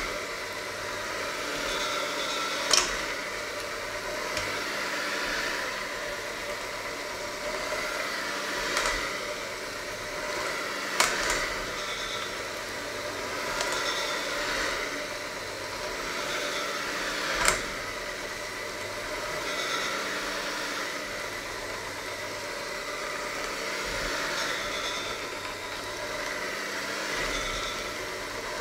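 Electric hand mixer running steadily as its beaters work a thick dough in a stainless steel bowl, the motor note swelling and easing with the load. A few sharp clacks cut in where the beaters strike the bowl.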